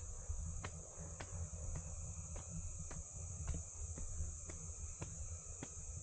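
Steady high-pitched chorus of insects, with sharp evenly spaced clicks about twice a second and a low rumble underneath.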